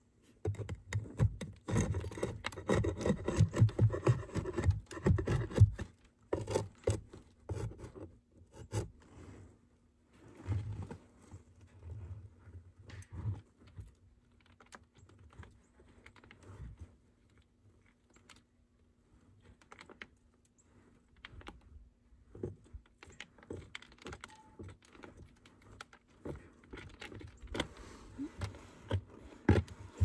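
Scratching, scraping and clicking handling noise from a wooden hive frame being held up and turned. The noise is dense for the first six seconds, then comes only in scattered scrapes and clicks.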